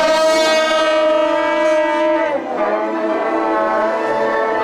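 Suona horns of a procession band playing a long held note that breaks off about two and a half seconds in, then going on with a wavering held note.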